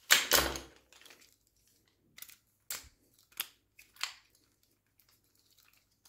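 Folding steel bike lock being unlocked with its key and taken out of its frame-mounted holder: a clunk of handling at the start, then four sharp clicks over the next two seconds.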